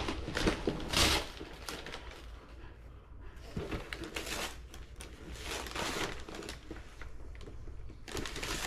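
Irregular light clicks and rustling of things being handled, loudest about a second in.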